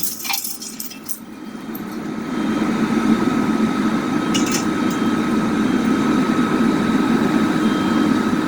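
Fire engine running steadily, a low hum with a thin steady whine over it, quieter for the first two seconds or so.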